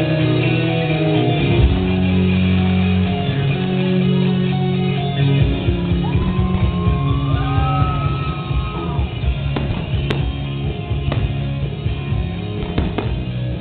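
Music with a steady beat and guitar, with a few sharp cracks of fireworks bursting over it in the second half.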